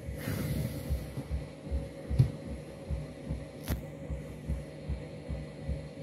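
Front-loading washing machine on a rinse cycle, drum turning through sudsy water: a steady motor hum under a low rhythmic sloshing pulse about two to three times a second. Two sharp clicks, the louder about two seconds in and another a second and a half later.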